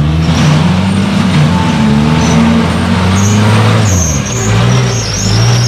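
Offroad buggy's engine revving hard under load as it claws through deep mud, the pitch rising and falling, then dropping about four seconds in.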